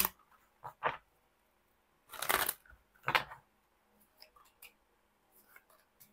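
Tarot cards being handled and dealt onto a table: a few short papery swishes and snaps as cards slide off the deck, the loudest about two seconds in and another a second later, then faint light ticks.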